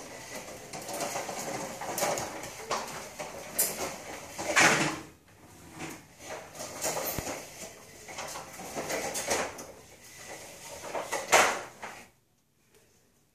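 Plastic push-walker toy rolling and scraping over a tile floor, with a few louder clattering knocks; it stops abruptly near the end.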